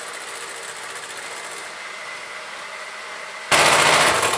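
Bosch electric hand mixer running steadily, its beaters whipping eggs and sugar in a glass bowl. About three and a half seconds in it turns suddenly much louder.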